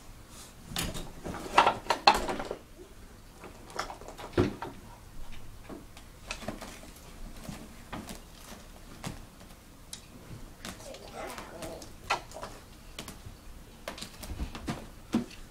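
A cat's claws scratching and catching in a fabric curtain as it climbs, with the curtain rustling and shaking on its rod. The sound is an irregular run of sharp scratches and clicks, busiest about two seconds in.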